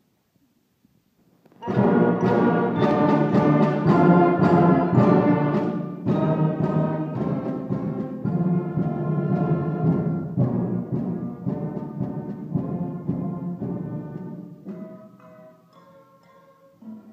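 A school wind band with trombones plays, starting all together about two seconds in at full volume, then tapering off to quieter, sparser notes near the end.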